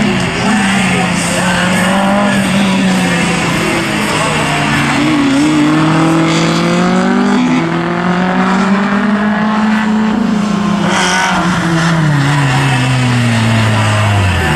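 A racing car's engine revving hard through a slalom run, its pitch climbing and dropping with gear changes and lifts off the throttle, then winding down steadily over the last few seconds.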